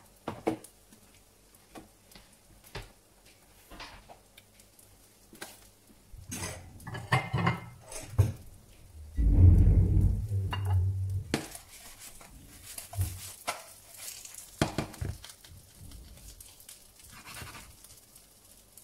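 Kitchen clatter of cookware and utensils: scattered clinks and knocks of pan, plate and cutlery on a stovetop and counter, with a louder dull rumble lasting about two seconds, about nine seconds in.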